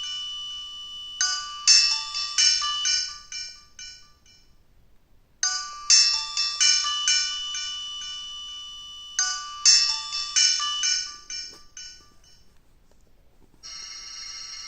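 Alcatel OT-1016D mobile phone playing a polyphonic ringtone through its speaker: a short phrase of quick melodic notes, repeated three times with brief pauses. A different tone starts near the end.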